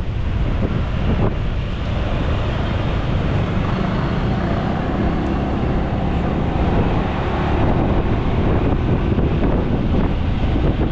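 Wind buffeting the microphone of a moving motorbike, with the motorbike's engine running underneath.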